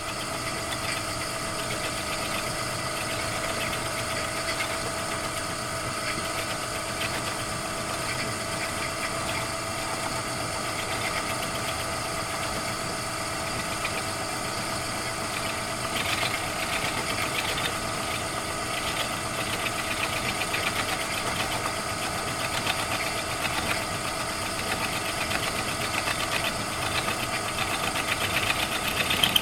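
Homemade milling machine running steadily, its motor and drive holding several fixed pitches, while the cutter takes a light 30-thou cut. About sixteen seconds in, a rougher, scratchy cutting noise joins the steady hum.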